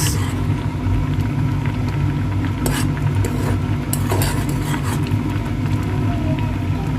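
Steady low rumble of a pot of quinoa boiling on the stove, with a few faint clicks.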